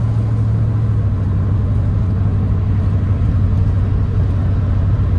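1995 Chevrolet K1500 pickup driving at a steady speed, heard from inside the cab: a steady low engine drone over road noise, easing slightly lower in pitch a little past the middle.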